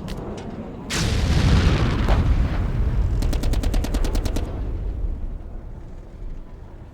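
Battle sound effect: a few gunshots, then a heavy blast about a second in that trails off into a long rumble. Around the middle comes a rapid burst of automatic gunfire, about ten shots a second for just over a second, before the rumble fades away.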